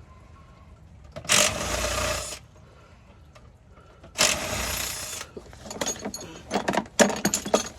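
Power impact wrench run in two bursts of about a second each, a few seconds apart, spinning bolts out while a 4L60E transmission is removed. Near the end there is a quick run of metal clicks and clanks from tools and parts.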